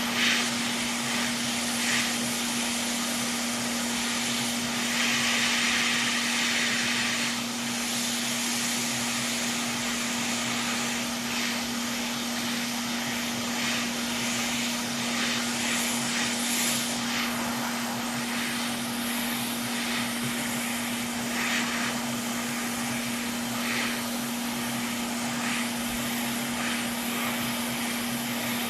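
Hot air rework station blowing steadily to melt the solder on a PS5's HDMI port. Its fan hum and airflow hiss hold steady throughout, with short sharper hissing flare-ups, the longest a few seconds in.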